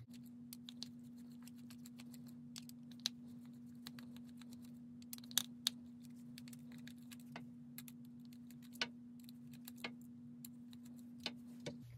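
Irregular light metallic clicks and taps of a screwdriver working out the small screws of a Zama C1U-H61 carburetor's primer bulb retainer, with the screws set down now and then. A faint steady hum runs underneath.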